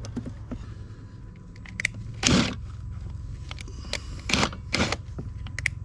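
A few short bursts from a cordless driver turning a puller's screw to draw the seized wiper arm off its linkage spindle, with crunching and scraping; the loudest burst comes about two seconds in.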